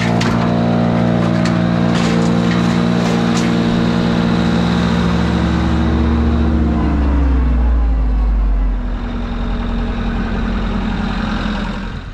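Tractor-driven wood chipper running at full speed, with sharp cracks of wood being chipped in the first few seconds. About six to seven seconds in, the engine is throttled down and the pitch drops as the chipper winds down, and it runs quieter after that.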